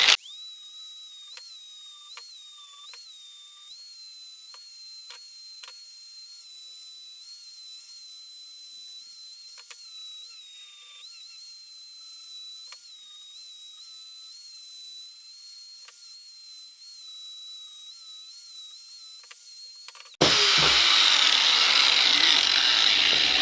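Angle grinder with a flap disc grinding a welded steel end cap. For most of the time only a faint high whine is heard, wavering slightly in pitch as the disc bites, with a few light ticks. About twenty seconds in it turns suddenly into a loud, full grinding noise.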